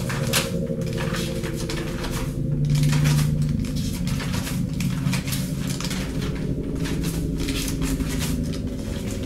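Pages of an old, brittle paper book being turned, rustling and crackling again and again, over a low steady drone.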